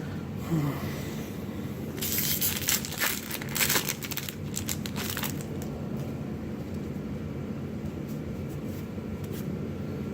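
Foil booster pack wrapper being torn open and crinkled, a run of crackling starting about two seconds in and lasting a few seconds.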